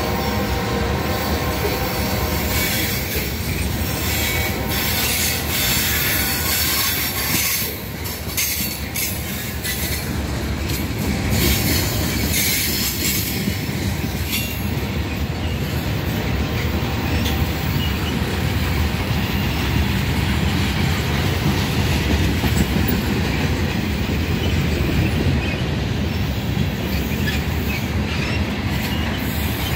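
A freight train of covered hopper cars rolling steadily past at close range, wheels rumbling on the rails. There is a high-pitched wheel squeal over the top, strongest from about five to fourteen seconds in.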